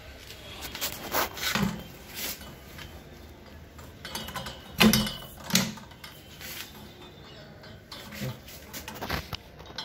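Irregular metal knocks and clunks from a stainless steel hermetic sampler tube being fitted onto a hermetic sampling valve and handled. The loudest pair of knocks comes about five seconds in.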